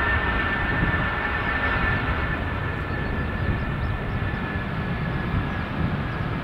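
Twin jet engines of a Turkish Airlines Airbus A330 running as the airliner rolls along the runway: a steady rush of engine noise with a high whine that weakens after a couple of seconds.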